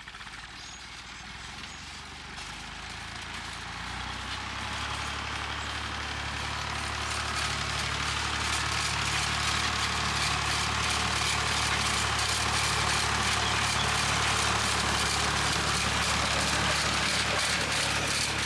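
Massey Ferguson 35 tractor engine running steadily at work, growing louder as it comes closer.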